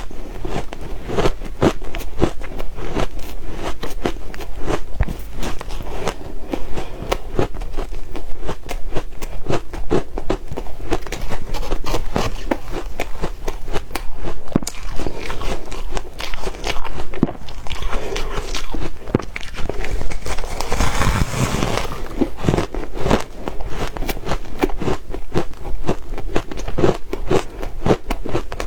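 A person biting and chewing soft ice mixed with crushed ice: a rapid, continuous run of crisp crunches and crackles, with a denser stretch about two-thirds of the way through.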